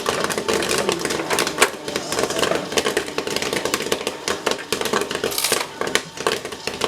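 Corn kernels popping rapidly and irregularly in an electric popcorn machine, dense crackling clicks over a steady hum from the machine.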